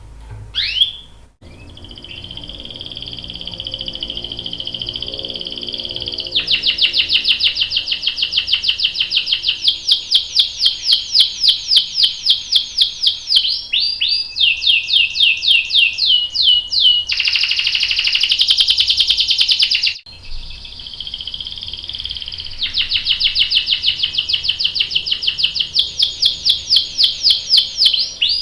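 Canary singing a long song: held whistled notes, then long rapid rolls of repeated notes, a short harsh buzzy passage about two-thirds of the way through, and more rolls near the end.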